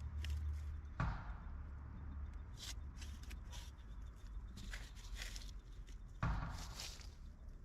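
Two dull thuds, about a second in and near the end, amid light rustling and clicking over a low rumble.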